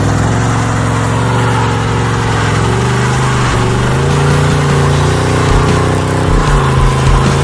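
LS-swapped V8 in an old Ford F-100 pickup revving hard through a burnout, its note holding high and dipping a couple of times. Hiss from the spinning rear trailer tires grows louder in the second half.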